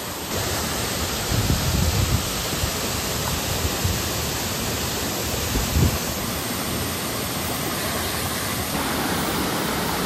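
Waterfall rushing steadily: an even hiss of falling water. A couple of brief low rumbles come about two and six seconds in.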